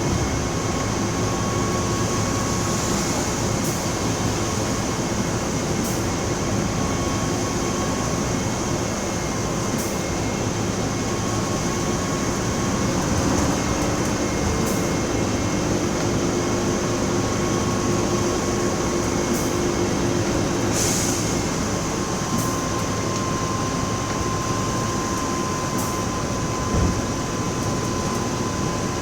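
Mercedes-Benz OF-1724L bus's diesel engine running: a steady drone with faint engine tones that come and go, and a light click every few seconds.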